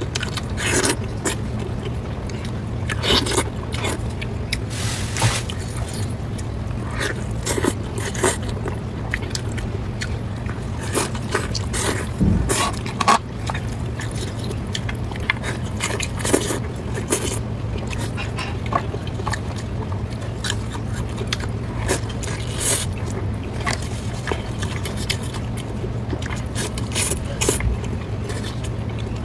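Close-miked eating: chewing and biting, with irregular wet smacks and crunches at uneven intervals, over a steady low hum.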